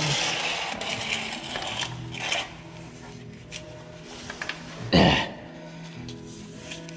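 Metal clicks and clanks of a grease gun and its hose coupler being worked onto the lever grease fittings of a John Deere 1590 grain drill, with one louder knock about five seconds in.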